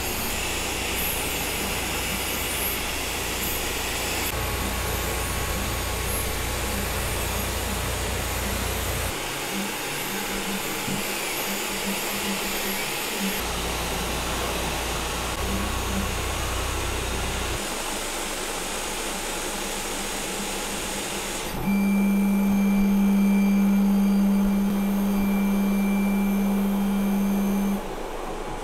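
Elegoo OrangeStorm Giga large-format 3D printer running a print: a steady whir of its fans with faint rising and falling whines from the stepper motors moving the print head. The sound changes abruptly several times, and a steady low hum is loudest for the last six seconds or so.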